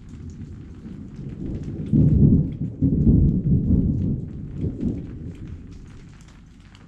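Thunder: a low rumble builds, turns sharply loud about two seconds in, rolls for a few seconds and fades away. Rain falls throughout, with scattered drop ticks.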